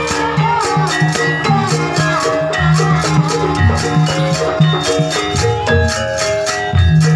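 Live Javanese dance music from a gamelan-style percussion ensemble. Pitched metallophone notes play over low drum strokes, with a steady high rattling beat running through it.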